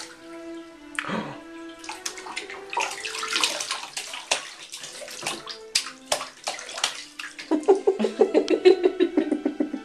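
A baby splashing in a plastic infant tub, her hands smacking the water in a string of sharp slaps, while water squeezed from a washcloth pours over her head. Near the end comes a quick run of pitched pulses, the loudest part of the stretch.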